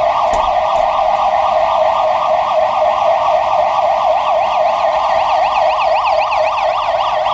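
Plant alarm siren sounding during a routine test: a loud, continuous warble sweeping quickly up and down in pitch several times a second, the up-and-down clearest in the second half. It is working properly.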